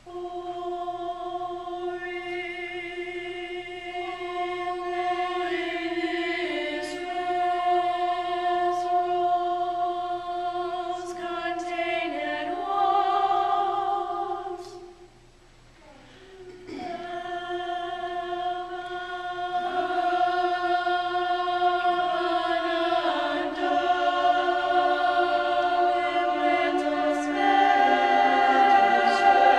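Mixed choir of men's and women's voices singing slow, long-held chords. The singing breaks off for about two seconds about halfway through, then resumes.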